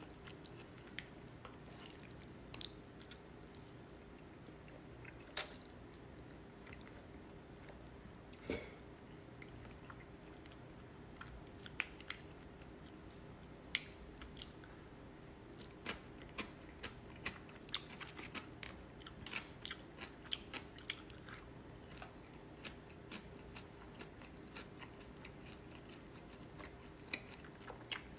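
Close-up chewing and crunching of crispy glutinous-rice fried pork (chapssal tangsuyuk), with scattered short clicks and crunches that come thickest in the middle stretch, over a faint steady hum.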